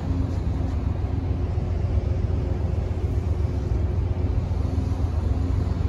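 Amtrak Amfleet II passenger cars rolling past on the track as the train pulls out, a steady low rumble of wheels on rail.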